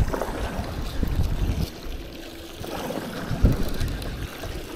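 Wind buffeting the microphone on an open fishing boat, with water washing against the hull and a few low thumps.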